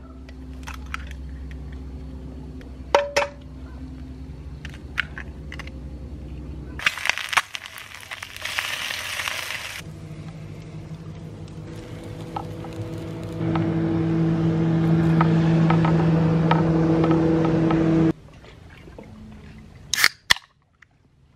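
Camp breakfast cooking in short cuts: eggs cracked into a pan on a portable stove with scattered clicks and taps, a stretch of hissing sizzle, and a steady hum that is loudest midway. Near the end, an aluminium drink can snaps open with two sharp cracks.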